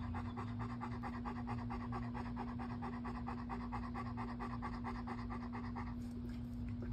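Dog panting fast and evenly, the strokes stopping briefly near the end, over a steady low hum.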